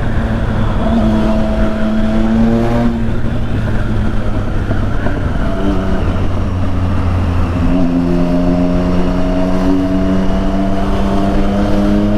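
Triumph Street Triple 675's inline-three engine through a full aftermarket exhaust, accelerating through the gears: the pitch climbs steadily, then drops at each upshift, three times.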